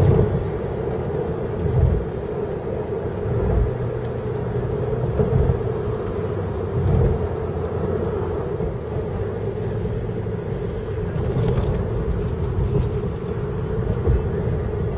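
Steady mechanical hum with an uneven low rumble underneath: airport ambient noise.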